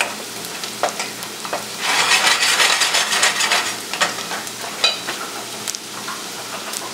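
Chopped onion sizzling in butter and olive oil in a pan as it is stirred, with a few light clicks of the utensil against the pan. The sizzle swells for a couple of seconds in the middle.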